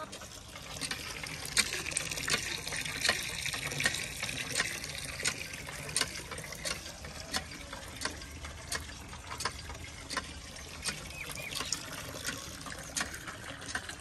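A hand pump being worked by its long iron lever, water gushing steadily from the spout and splashing below. Each stroke gives a sharp metal clank, about one and a half a second.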